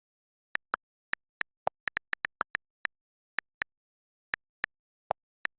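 A string of about eighteen very short electronic blips in an uneven rhythm, with dead silence between them. Most are at one high pitch, and a couple are lower, about a second and a half in and again near the end.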